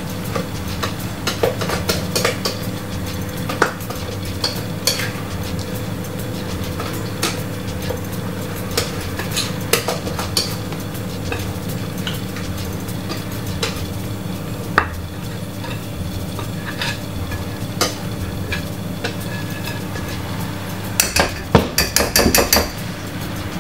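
A utensil scraping and tapping against a mixing bowl as cake batter is spooned into a baking tin. Scattered clicks run throughout, and there is a quick flurry of knocks near the end. A steady low hum sits underneath.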